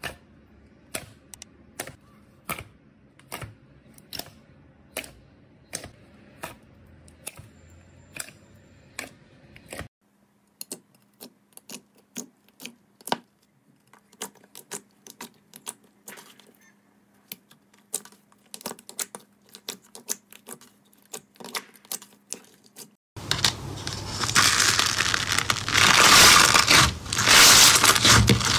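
Slime pressed and squished by hand: a run of sharp clicks and pops, about two a second at first, then more scattered. Near the end comes a loud, dense crackling squish.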